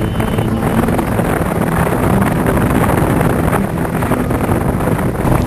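Blizzard wind blowing hard across the microphone: a loud, unbroken rumble.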